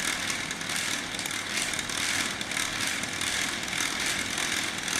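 Small Lego electric motor and plastic gear train running steadily with a fine rapid gear chatter, driving the cup-separation slide back.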